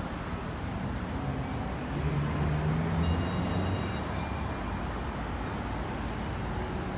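City street traffic noise with a steady hum, and a motor vehicle engine passing close by about two to four seconds in, its low hum rising and fading.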